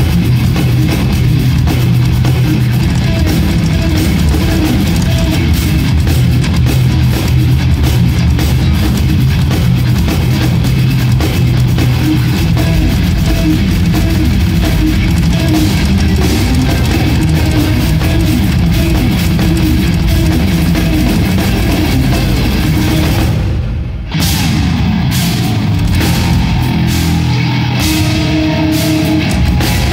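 Live instrumental progressive metal from a band of two electric guitars and a drum kit, heard loud from the audience. About 24 seconds in the band stops for a moment. It comes back with lighter cymbals and clearer single guitar notes.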